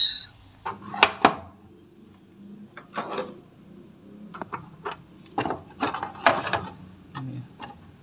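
Irregular clicks, knocks and rustles of hands handling plastic parts and wiring inside a washing machine's plastic cabinet, the sharpest knocks about a second in.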